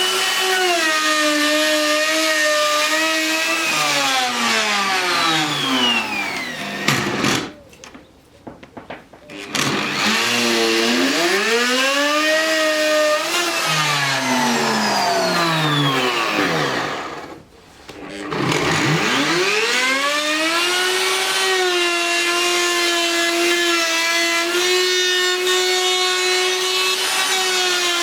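Handheld electric power tool cutting the wooden speaker box: its motor whine dips and recovers in pitch as it bites, winds down to a stop about seven seconds in and again around seventeen seconds, then runs at a steady pitch through the last several seconds.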